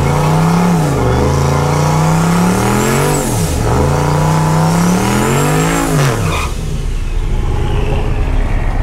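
Drag truck's engine at full throttle on a quarter-mile pass, climbing in pitch through each gear, with sharp drops at the shifts about one and three and a half seconds in. A faint high whine rises alongside it, and the engine note falls away about six seconds in.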